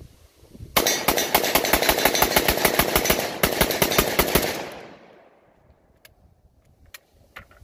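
Kalashnikov USA Komrad 12 semi-automatic 12-gauge shotgun fired as fast as the trigger allows, about five shots a second for under four seconds, emptying its 20-round drum magazine of buckshot. The echo dies away after the last shot, followed by a few faint clicks.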